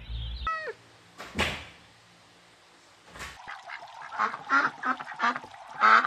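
A duck calling in a rapid series of short quacks that grow louder toward the end, after a short falling call about half a second in.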